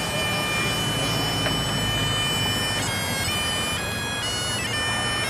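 Bagpipes playing a tune over a steady drone: one long held note, then the melody steps through several notes from about three seconds in.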